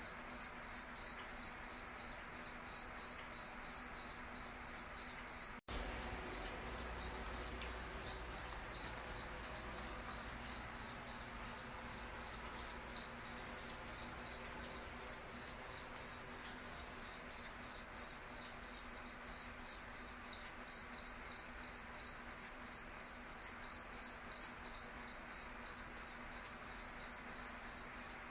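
Cricket chirping steadily at a single high pitch, about three chirps a second, with a brief dropout about six seconds in.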